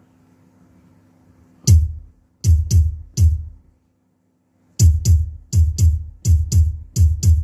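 Digital hadroh bass module sounding deep, booming bass-drum strokes through an amplifier, each with a sharp click on the attack: one stroke, then three, then a quicker run of about eight. A faint steady hum sits between the strokes.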